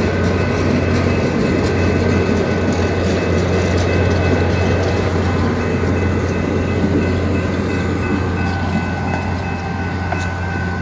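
Passenger train rolling slowly past a grade crossing, its wheels clattering on the rails over a steady low drone. The crossing signal's bell rings steadily over it.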